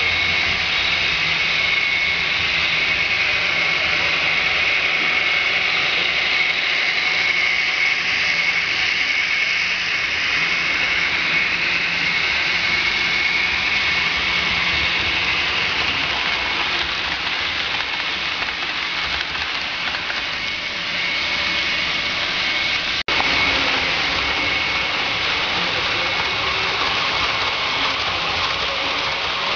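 Model trains running on a layout: a steady whir of small motors and wheels rolling on the rails, with a high whine over a low rumble. The sound drops out for an instant about two-thirds of the way through.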